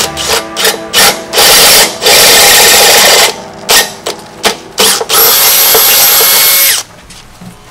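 Cordless drill boring a hole through a minibike's metal frame: several short trigger bursts, then two longer runs with a steady motor whine, stopping near the end.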